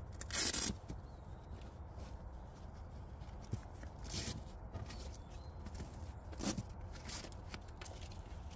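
Grey nylon sleeping pad being rolled up by hand: its fabric rustles, with three short loud swishes, one about half a second in, one at about four seconds and one at six and a half, over a low steady rumble.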